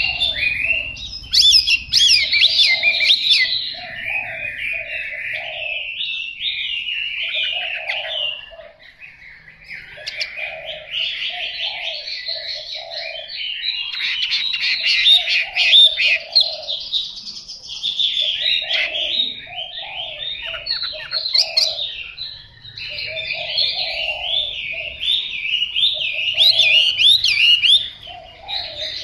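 Chinese hwamei (melodious laughingthrush) singing a long, varied song of rapid high phrases, broken by a short pause about nine seconds in.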